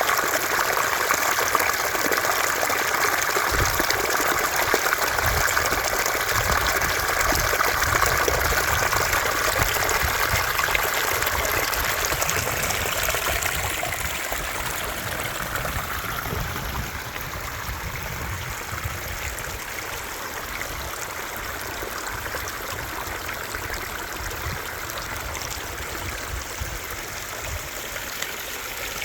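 Water rushing and trickling over the short stone drops of a small pondless waterfall stream, a steady splashing that grows somewhat softer about halfway through.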